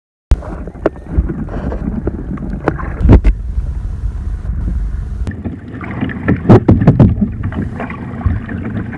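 Wind buffeting a phone's microphone on a kayak out on open water, starting abruptly a moment in, with sharp knocks and splashes now and then from the paddling.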